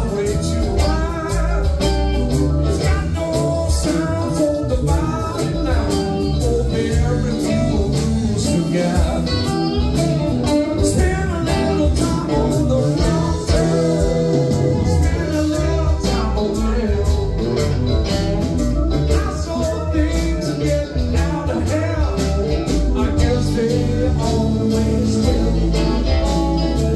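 Live rock band playing: electric guitars, bass, drums and keyboards, with singing over them.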